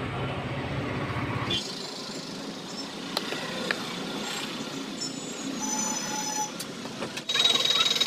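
Steady background vehicle and street noise with a few sharp clicks; near the end the noise jumps abruptly louder, with a steady high whine.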